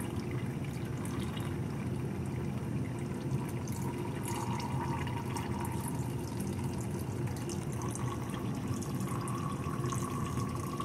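Warm engine oil running in a thin, steady stream from the partly loosened drain plug of a Cummins ISX oil pan into a plastic cup, filling it.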